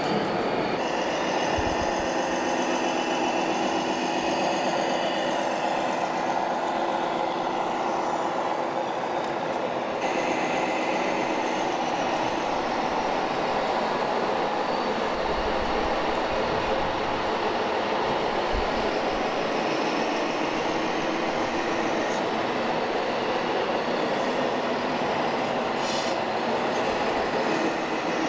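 Radio-controlled scale model vehicles running: a steady mechanical running noise that PANN hears as rail traffic, its tone shifting about a second in and again about ten seconds in.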